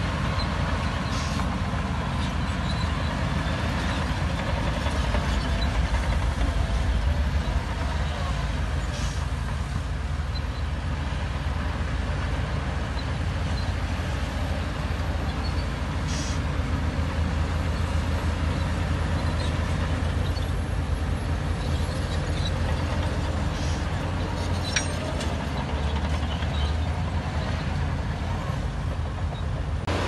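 Shantui crawler bulldozer's diesel engine running steadily under load while it pushes dirt, with a few short clicks and knocks over the rumble.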